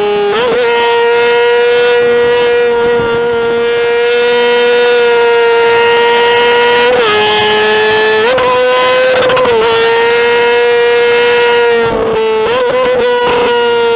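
Motorcycle engine held at high revs, a loud, steady high-pitched note that dips briefly a few times before climbing back.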